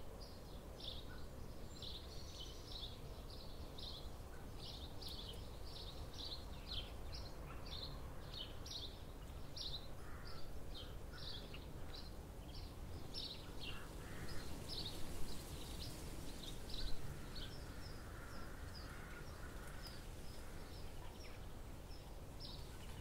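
Winter forest ambience: small birds chirping in short, high calls, about two a second, over a low steady rumble. The chirping thins out in the last few seconds.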